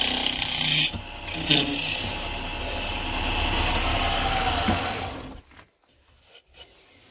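Wooden workpiece spinning on a wood lathe with a tool rubbing and scraping against it, over the faint hum of the lathe; the sound stops abruptly about five seconds in.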